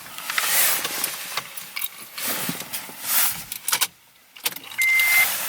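A few seconds of shuffling, scraping noises, then a brief drop to quiet and a car's electronic warning chime sounding one steady beep near the end, from the 2004 Acura TSX.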